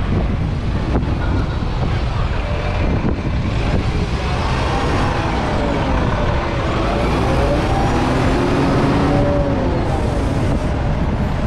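City street traffic noise with a heavy low rumble throughout, and a pitched sound wavering up and down for several seconds in the middle.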